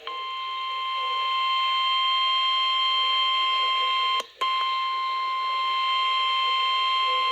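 NOAA Weather Radio warning alarm tone, the single steady 1050 Hz tone that announces a warning message. It drops out for a split second about four seconds in, then carries on.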